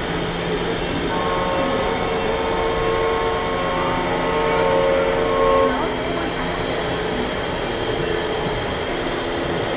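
Radio-controlled semi truck's sound-unit air horn: one long chord of several steady notes, held for about four and a half seconds from about a second in. Under it runs a steady murmur of hall noise and voices.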